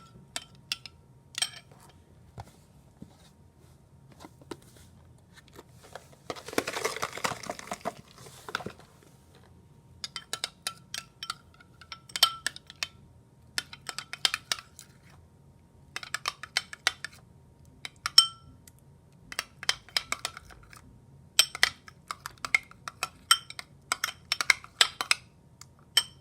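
A utensil clinking and tapping against a dish in many short, sharp knocks while slime ingredients are mixed. About six seconds in comes a burst of rustling noise lasting about two seconds.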